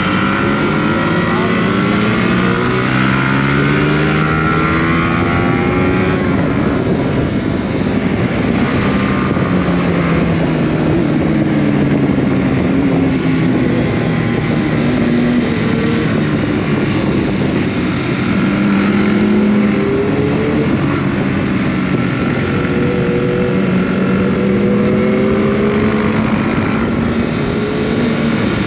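Several motorcycle engines running together on a moving ride, their pitch rising and falling again and again as the riders open and close the throttle through the bends, over steady wind rush.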